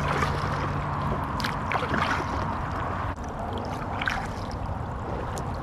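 Paddles dipping and water gurgling and sloshing along the hull of a tandem inflatable kayak moving through calm water, with a few sharper splashes about one and a half, two and four seconds in.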